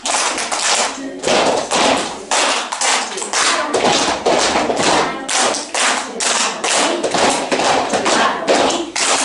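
A group of children and their teacher clapping their hands together in a rhythm exercise, short sharp claps repeating about three times a second with a few brief pauses.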